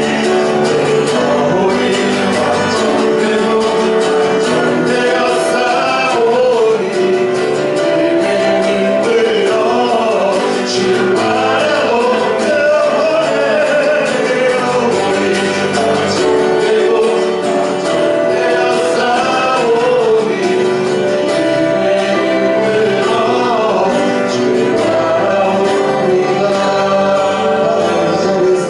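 Church praise team singing a worship song with voices and instrumental accompaniment, steady throughout.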